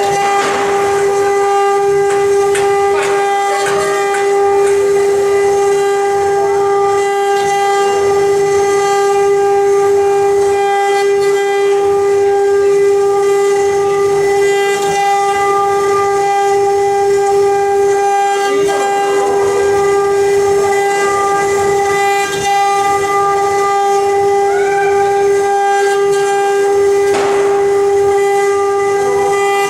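CNC relief-carving router's spindle running with a steady high whine, the cutter grinding through the workpiece in a few brief rougher spells.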